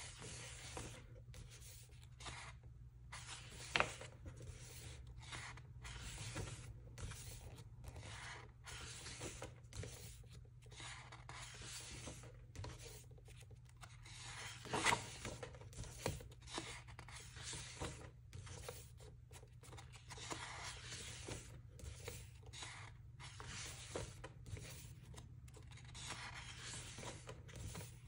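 Pages of a large photobook being turned and smoothed flat by hand: faint paper rustling and rubbing, with a few sharper flicks of a page, the loudest about 15 seconds in.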